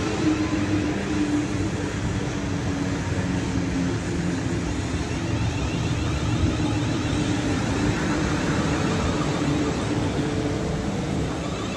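A South Western Railway Class 450 Desiro electric multiple unit passing close by: a steady rumble of wheels on the rails with the hum of its traction motors, easing off slightly near the end.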